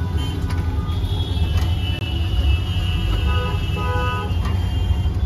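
Steady low rumble of street traffic, with a vehicle horn giving two short toots a little past the middle.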